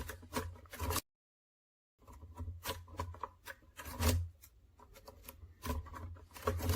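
Thin lock pick scraping and clicking against the pins inside a pin-tumbler lock cylinder as the lock is picked open: irregular small clicks and rubs. The sound cuts out completely for about a second near the start.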